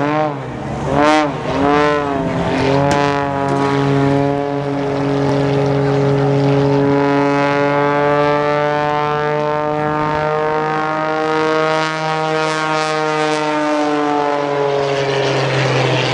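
Aerobatic propeller plane's piston engine and propeller, its pitch swinging up and down quickly a few times as the plane tumbles through a manoeuvre, then settling into a steady drone whose pitch slowly rises and falls.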